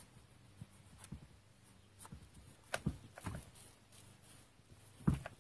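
Quiet handling noises: a few faint clicks and light knocks, spaced irregularly.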